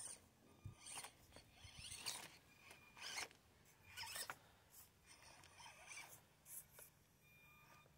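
Faint whirring of a 1/24-scale Axial SCX24 crawler's small electric motor and gears, coming in short bursts about once a second as it is throttled over rocks, with a thin steady whine near the end.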